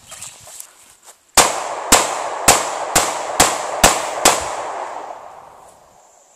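A gun fired seven times in quick succession, about half a second apart, with the shots echoing and the echo fading away over a couple of seconds after the last one.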